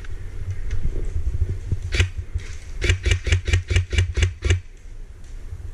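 Airsoft rifle firing: a single shot about two seconds in, then a quick string of about eight shots over a second and a half, at about five a second. A steady low rumble runs underneath.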